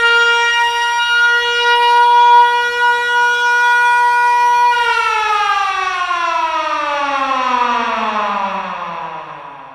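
Siren holding one steady, loud tone for about five seconds, then sliding steadily down in pitch and fading away near the end.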